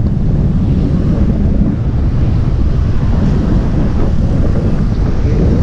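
Steady wind rumble on the microphone of a moving motorcycle, mixed with the motorcycle's engine running.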